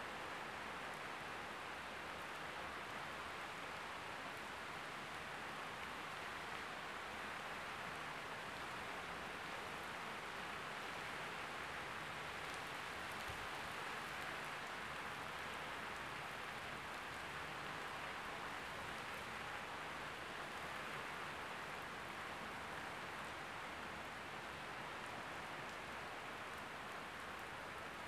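Rain falling steadily during a thunderstorm, an even hiss that holds level throughout.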